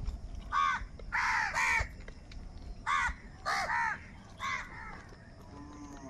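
House crows cawing at a shared food bowl: about seven short caws in loose groups over the first four and a half seconds.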